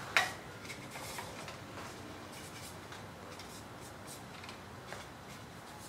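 A pen scratching faintly as it writes numbers on plastic weighing dishes, with one sharp tap right at the start.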